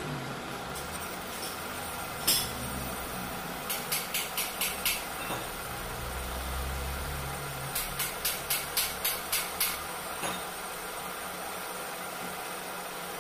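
Metal lathe running steadily while its cutting tool machines the combustion dome of a motorcycle cylinder head. Two runs of six or seven quick clicks, about five a second, sound over it, with a few single clicks.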